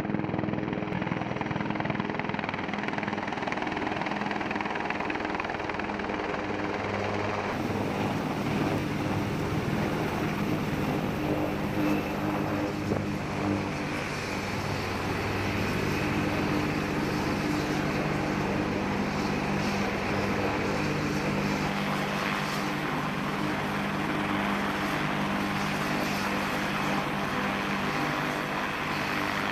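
Bell UH-1Y Venom utility helicopter running, a steady drone of turbine and rotor with a low hum. The sound shifts abruptly about seven seconds in, as a helicopter flying overhead gives way to one running on the ground.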